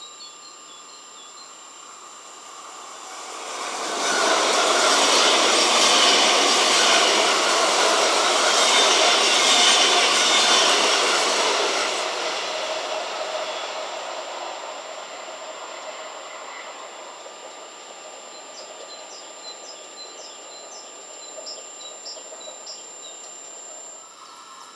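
A WESTbahn Stadler KISS double-deck electric multiple unit passes at speed, its wheels rumbling on the rails. The noise swells within about a second, holds loud for several seconds, then slowly fades as the train draws away.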